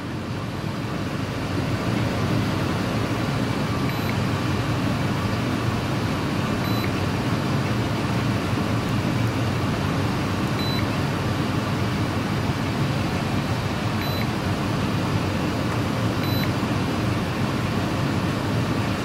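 Innova 5610 scan tool giving short high-pitched button beeps, five of them a few seconds apart, as its menus are stepped through. They sound over a steady, even mechanical noise.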